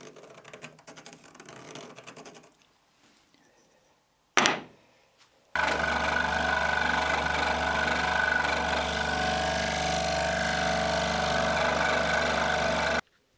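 Scroll saw running and cutting a tapered circle out of a stack of pine blocks: a loud, steady motor hum with blade chatter that starts suddenly about halfway through and cuts off near the end. Before it, faint scratching of a pencil marking the wood and a single click.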